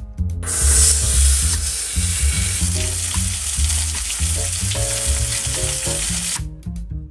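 Slab of pork for chashu searing in oil in a pot, sizzling loudly; the sizzle starts about half a second in and cuts off suddenly near the end. Background music runs beneath it.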